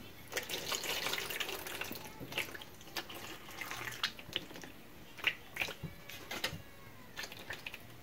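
Water poured from a glass measuring cup into a metal sheet pan: a steady pour for the first couple of seconds, then a scatter of splashes and drips.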